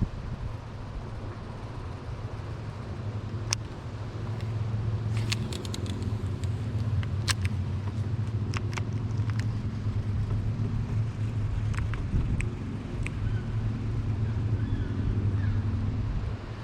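Small boat's motor running steadily under way, a low even hum, with wind buffeting the microphone and scattered sharp clicks and knocks.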